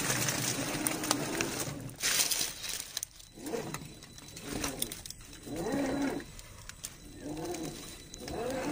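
An RC crawler's brushed 550 electric motor and gearbox whining, steady at first and then in several short rising-and-falling pulses as the throttle is worked, with tyre noise on wet rock and leaves.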